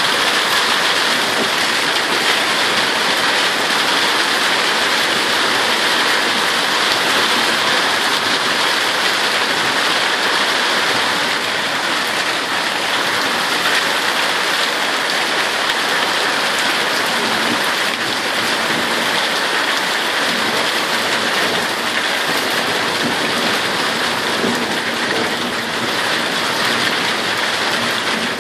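Heavy thunderstorm rain falling steadily, easing a little about halfway through.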